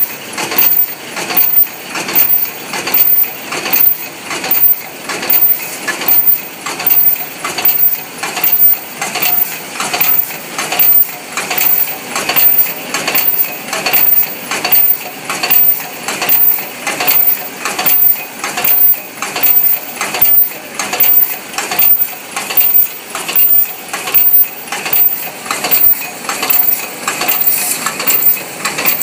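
MB-12/22 paper cup forming machine running: its mechanism clatters and clinks in a steady, even cycle, a little faster than once a second.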